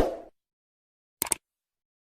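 The last hit of a music track dies away at the start. About a second later comes a single short double click, like a computer mouse-click sound effect.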